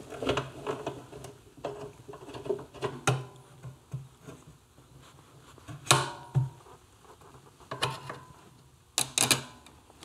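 Metal parts and tools handled on a workbench: irregular clicks and knocks, with sharper clinks about three, six and nine seconds in.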